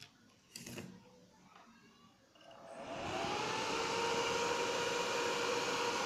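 Large 12 V axial cooling fan wired straight to a 12 V battery. There are a couple of faint clicks as the wire meets the terminal. About two and a half seconds in, the fan spins up with a rising whir, then runs steadily at full speed, working properly.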